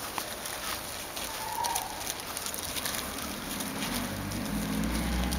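Thin plastic bag crinkling and rustling in quick irregular crackles as puppies tug at it with their teeth. A low rumble builds near the end.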